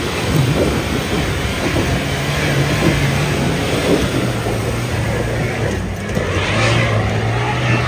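Nissan Navara pickup's engine running steadily under load as the truck crawls through a deep rut, the revs rising a little about two seconds in and easing near six seconds, over a constant rough noise of the truck working through the dirt.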